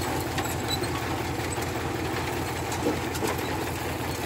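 Farm machinery at a potato harvest running steadily: a low engine drone with a constant mechanical rattle over it.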